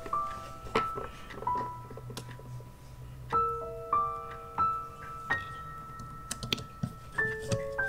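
Soft background piano music, notes struck one after another and left to ring, over a few light clicks and taps of a camera body and screwdriver being handled.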